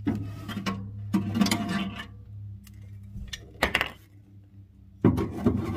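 Metal clinking and scraping as a broken hole-saw pilot drill bit is worked out of a steel firewall, with clusters of clatter about a second and a half in, near four seconds and near the end, over a steady low hum.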